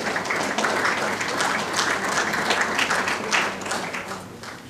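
Audience applauding a graduate whose name has just been called, many hands clapping together, the clapping fading away near the end.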